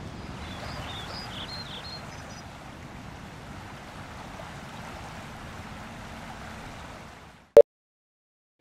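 A steady, even hiss of ambient noise with a few short high chirps in the first two seconds fades out, and about a second later a single short, loud beep sounds, the sync beep of a countdown leader, followed by dead silence.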